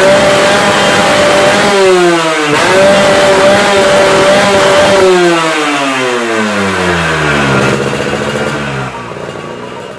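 Yamaha RXZ two-stroke single-cylinder motorcycle engine revving through an aftermarket exhaust. It is held at high revs, drops about two seconds in, is revved up and held again, then winds down in a long slow fall in revs that fades near the end.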